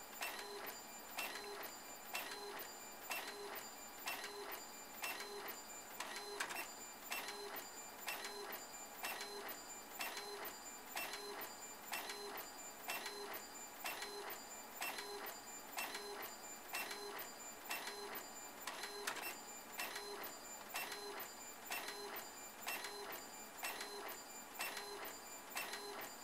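Epson Stylus Color 740 inkjet printer printing a photo in 720 dpi photo-quality mode. Its print head carriage shuttles back and forth across the page in an even, repeating rhythm of passes.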